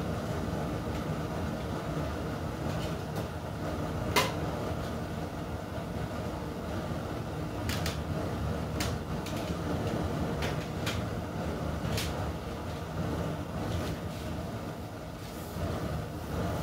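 Outdoor propane burner running steadily under a stainless steel steamer pot, a low rumble, with a few sharp clicks scattered through it.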